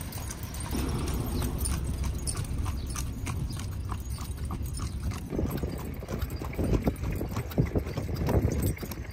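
Carriage horse's hooves clip-clopping on the road as it pulls the carriage, heard from the seat behind it, over a steady low rumble.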